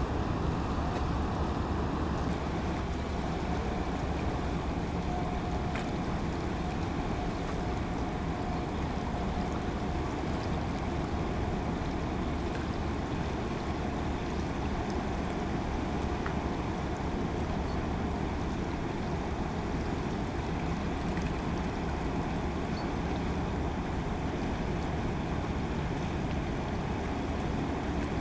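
Steady low drone of passing inland cargo barges' diesel engines, mixed with wind and the wash of the river.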